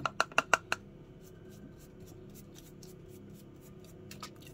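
A pastry brush beating egg wash in a plastic bowl, a quick run of clicks against the bowl that stops about a second in. Then faint, soft strokes as the brush spreads the egg over raw scones.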